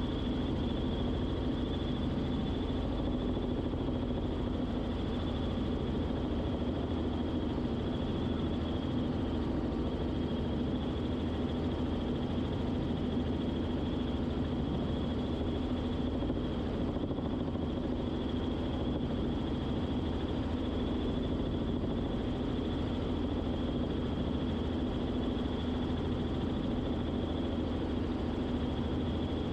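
Robinson R44 Clipper II helicopter in cruise flight: a steady, unchanging drone of engine and rotor noise heard from inside the cabin, with a thin high whine above it.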